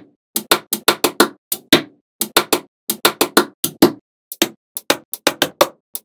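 Small magnetic balls clicking together one after another as a model is built: a fast run of sharp clicks, about four or five a second, with a short gap about two-thirds of the way through.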